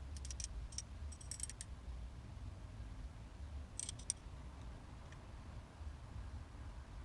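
Faint, short metallic clicks and ticks in small clusters, from a thread tap being turned by hand to cut new threads in an aluminium derailleur hanger, over a low rumble.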